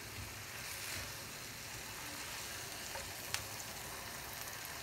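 Marinated chicken pieces sizzling in a cast-iron frying pan, steady, while they are turned over with tongs. One short click about three seconds in.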